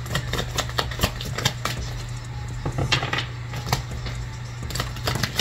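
Oracle or tarot cards being handled, shuffled and drawn: irregular crisp clicks and taps, several a second, over faint background music.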